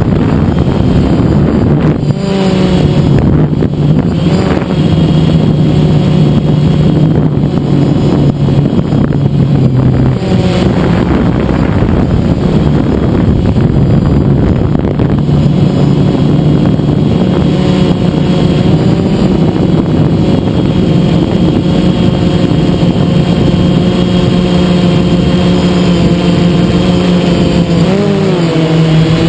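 DJI Phantom quadcopter's motors and propellers humming loudly, close to the onboard camera. The pitch steps up and down several times and wavers briefly near the end.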